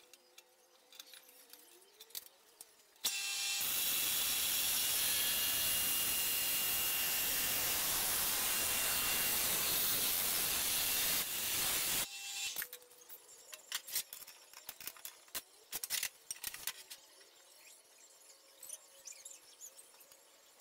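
A power cutting tool starts about three seconds in and runs steadily for about nine seconds, cutting a round metal pipe, then stops abruptly. Light clinks and knocks of metal being handled come before and after.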